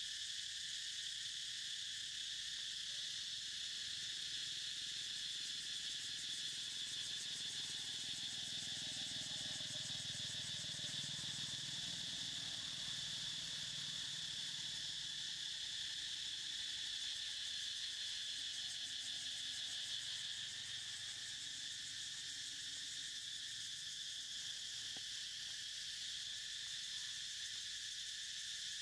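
Insect chorus: a steady, unbroken high-pitched trilling drone.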